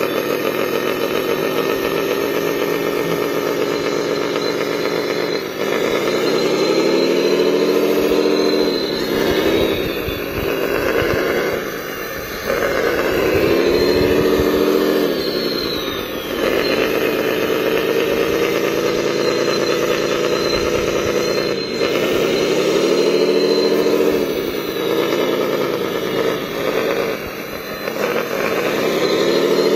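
Radio-controlled model wheel loader and excavator working: a steady whine from their electric motors and gearing that sags in pitch and comes back up several times.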